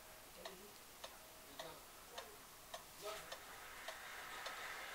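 Overocean pendulum wall clock's movement ticking faintly and evenly, a little under two ticks a second. The clock keeps running only when hung tilted a little to one side; hung straight, it stops.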